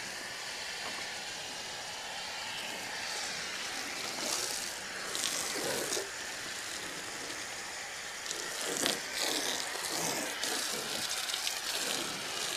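Foam cannon spraying soapy foam onto a car's paint: a steady hiss of spray that swells now and then as the stream sweeps across the body.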